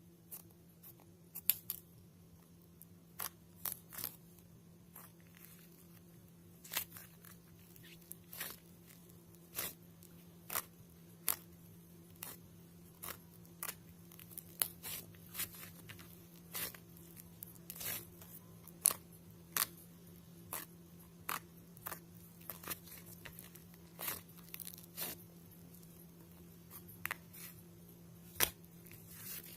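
Irregular crisp snips and crackles, roughly one or two a second, over a steady low hum.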